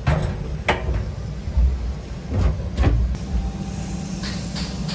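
A steady low rumble with several sharp knocks and clunks, the loudest in the first three seconds, and lighter ticks near the end.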